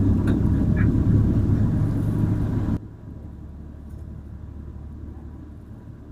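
Low rumble of a small canal tour boat's engine and propeller under way, heard inside its wooden cabin. About three seconds in it drops off abruptly to a much quieter steady hum.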